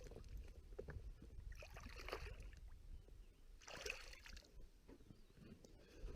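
Faint water sounds around a small boat, with two brief splashes, about two and four seconds in.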